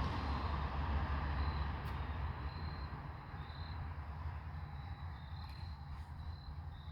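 Outdoor background: a steady low rumble that slowly fades, with faint short high chirps about every second.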